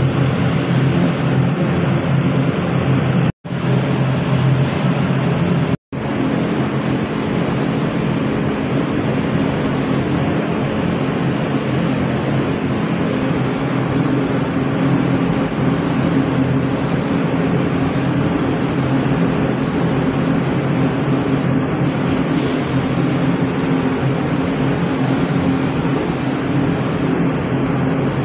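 Steady loud rush of air in a paint spray booth: a gravity-feed spray gun blowing compressed air and paint, over the low hum of the booth's fans. The sound cuts out abruptly twice, a few seconds in.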